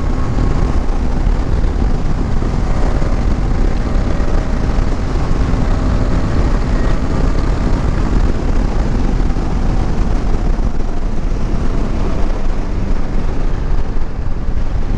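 KTM 250 Adventure's single-cylinder engine running at a steady cruising speed, under a heavy rush of wind on the on-board microphone.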